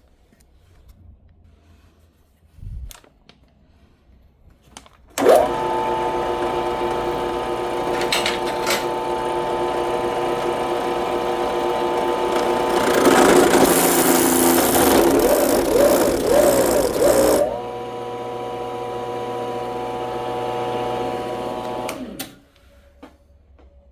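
Electric drill spinning a spade bit. It starts suddenly about five seconds in with a steady whine, and from about 13 s it gets louder and rougher, its pitch wavering as the bit grinds into the gloved test piece. Around 17 s it drops back to a lighter free-running whine, then stops near the end.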